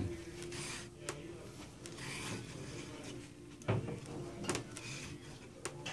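Wooden beehive frame parts being fitted together by hand: a solid grooved bottom bar scraping and sliding into the slots of the end bars, with a few sharp knocks of wood on wood.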